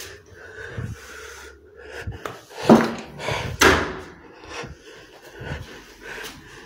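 Close handling and movement noise from a handheld phone, with a person's breathing. Two sharper, louder sounds come about halfway through.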